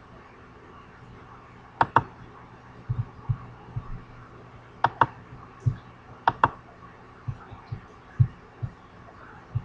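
Computer mouse clicked three times, each a quick sharp pair of clicks, about two, five and six and a half seconds in. Soft dull thumps come at intervals between them over a steady low hum.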